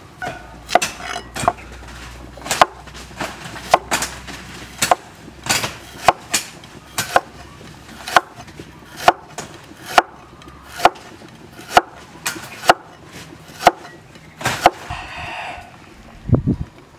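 Steel cleaver slicing a fresh ginger root on a wooden chopping board, each stroke a sharp knock of the blade on the wood, one or two a second in a steady series.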